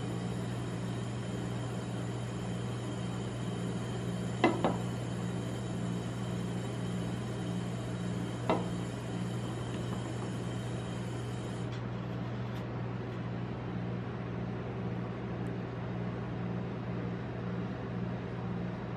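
A steady low hum with two short knocks, a double one about four seconds in and a single one about eight seconds in.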